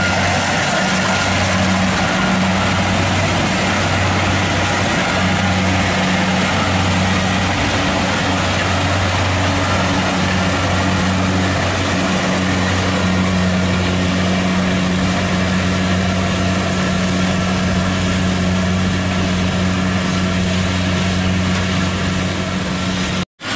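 Kubota DC-70 combine harvester running steadily as it cuts and threshes rice: an even engine drone with a low hum under a dense mechanical hiss. The sound cuts out for an instant near the end.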